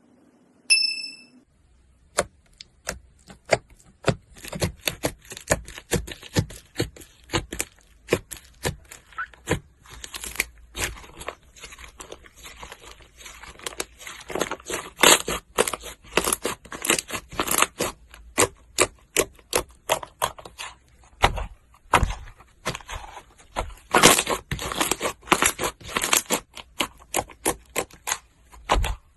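Slime being squeezed, stretched and poked by hand, giving a dense, irregular run of sticky clicks, pops and crackles. A brief bell-like ding sounds about a second in.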